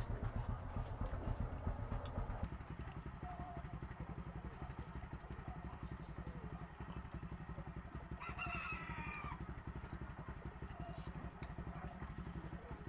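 A rooster crows once about eight seconds in, a single call lasting about a second. Under it runs a steady low rumble with a fast, even pulse.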